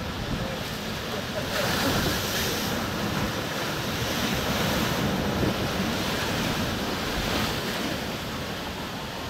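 Storm surf crashing against the seawall and surging over the promenade in a continuous rush of churning water. About a second and a half in, the hiss of spray grows louder. Wind is on the microphone.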